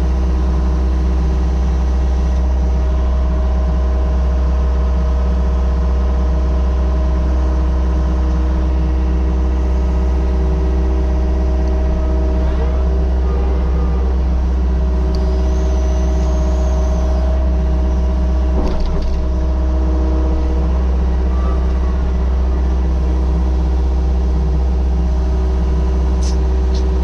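Mini excavator's diesel engine running steadily at a constant speed, with a brief high whine midway and a single sharp knock a little later.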